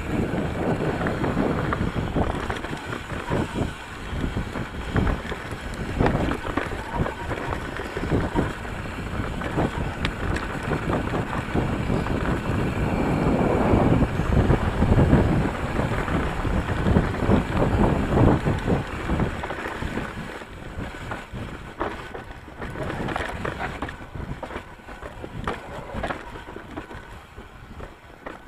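Ibis Mojo HD3 full-suspension mountain bike riding down a rough dirt singletrack: wind rushing over the camera microphone with a constant clatter of knocks and rattles from the bike over the ground. Loudest about halfway through, easing off in the last third.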